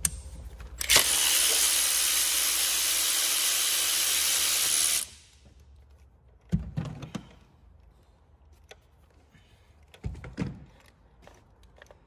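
Cordless electric ratchet running steadily for about four seconds, starting and stopping abruptly, as it backs a spark plug out of the engine's cylinder head. Two short knocks follow as tools are handled and set down.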